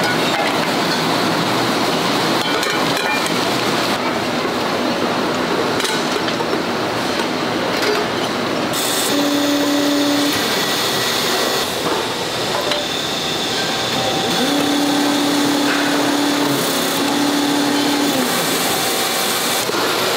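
Steady, loud factory machinery noise, with occasional clinks of aluminium non-stick frying pans being handled and stacked, and a brief low hum twice in the middle.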